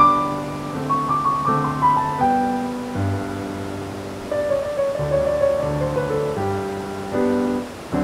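Piano music: held chords under a melody line, the notes changing every second or so.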